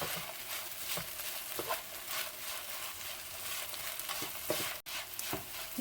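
Chechebsa (shredded flatbread coated in olive oil and berbere) sizzling gently as it warms in a frying pan, with a few scrapes of stirring.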